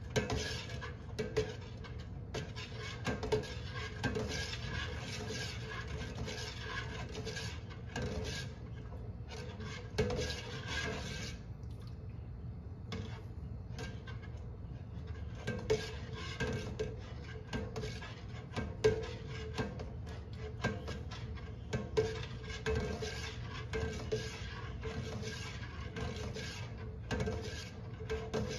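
A long-handled metal spoon stirring a large stainless steel stockpot of soy milk as it comes to the boil, scraping along the pot with frequent light metal-on-metal clinks. The stirring eases briefly about midway, over a faint steady hum.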